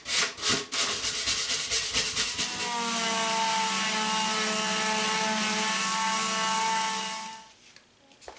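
Quick back-and-forth scrubbing strokes of coarse sandpaper or a brush on old plywood, cleaning off dirt. A little over two seconds in, a power tool's motor starts, runs steadily for about four and a half seconds, then winds down.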